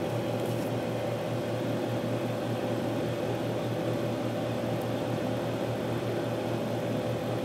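Steady low electrical hum with even fan-like noise from the running amplifier test bench, unchanging throughout.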